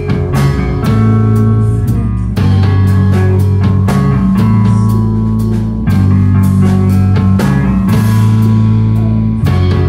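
Live rock band playing loudly: guitar and bass holding low notes that change every second or two, over steady drum-kit hits.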